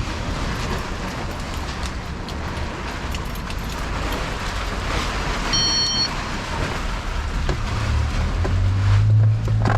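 Steady rumble and hiss of vehicle or traffic noise, with a low hum building near the end. Scattered light clicks and a brief high electronic tone about halfway through.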